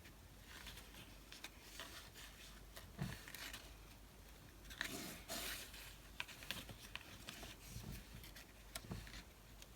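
Faint, scattered taps and rustles of paper and card pieces being handled and moved about on a work surface.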